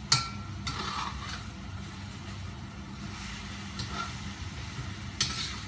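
Metal spatula scraping and clanking against a wok while chopped duck pieces sizzle in their rendered fat, with a sharp clank just after the start and another near the end. A steady low hum runs underneath.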